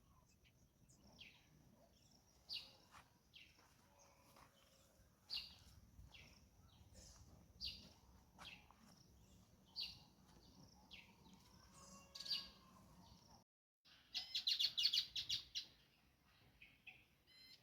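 Faint wild birdsong: a bird repeats a short, high, downward-sliding call every second or two. After a brief dropout, a louder fast run of chirps comes about 14 seconds in.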